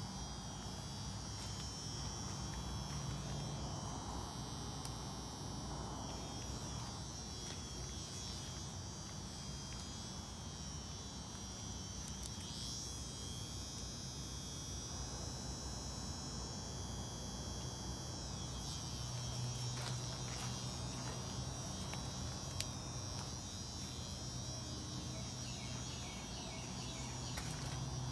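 Steady, shrill chorus of crickets or similar night insects. A low steady hum lies underneath and grows louder in the last third.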